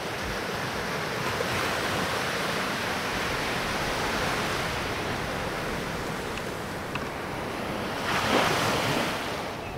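Sea surf breaking on a beach: a steady rush of waves that swells about eight seconds in.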